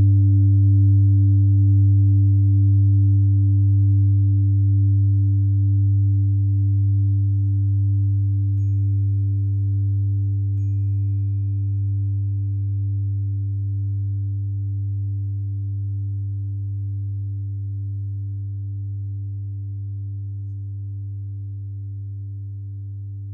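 An old singing bowl's deep ringing tone slowly fading, with a gentle wavering beat. About eight seconds in, a 396 Hz tuning fork is struck, adding a clear pure tone with a faint high ring, struck again about two seconds later.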